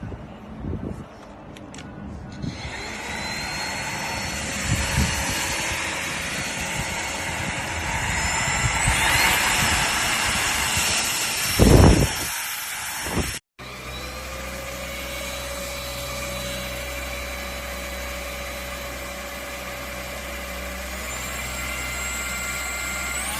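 Russell Taylors Vortex cordless vacuum cleaner's brushless motor running with a steady whine and airflow noise. It builds up over the first few seconds and has a loud thump about twelve seconds in. About halfway through it cuts out abruptly, then resumes as a steady whine.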